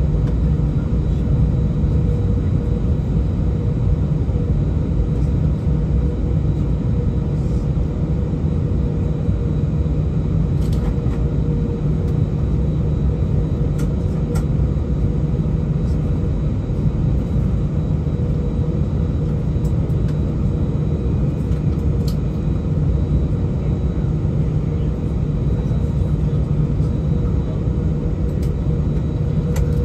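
Steady low rumble in an Airbus A319's cabin while taxiing, the jet engines at low taxi power, with a steady hum running through it.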